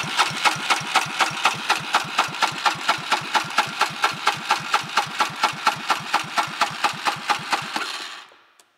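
Polaris Sportsman 500 EFI X2 single-cylinder engine cranking over without firing for a compression test, with a compression gauge in place of the spark plug. It gives an even pulse at about five beats a second, one per compression stroke, and stops about eight seconds in. The gauge reaches 190 psi, which is taken as a sign of a good, healthy engine.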